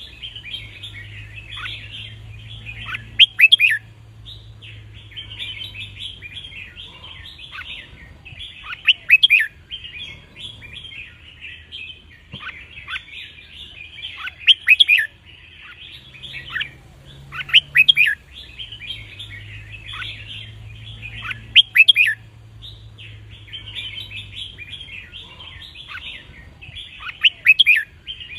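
Red-whiskered bulbul song: about six loud phrases of quick falling whistles every few seconds, over a constant chatter of many bulbuls. It is a song recording played to teach young bulbuls and to get caged birds singing along.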